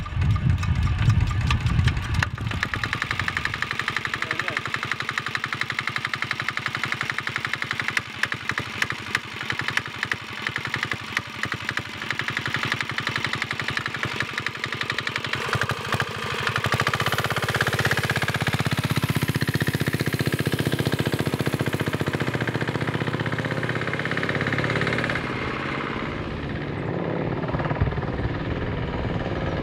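Jintian 165F single-cylinder, air-cooled 199cc diesel engine on a mini bike, just started by hand crank. It runs with a rapid, even diesel knock. About halfway through it gets louder as the bike is ridden off, then eases a little near the end as it moves away.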